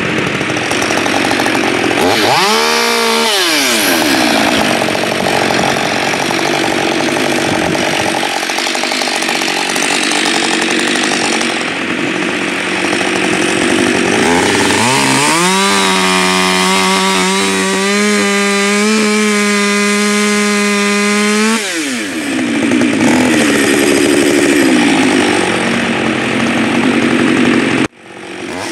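Gas chainsaw bucking logs at high revs. It revs up and drops back about three seconds in, works through the wood, and holds a steady high engine note from about fifteen to twenty-one seconds. The sound cuts off abruptly near the end.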